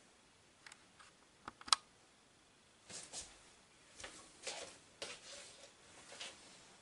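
Faint handling and movement noise: a few sharp clicks, the loudest about a second and a half in, then soft rustling as a person in a cloth robe moves close by.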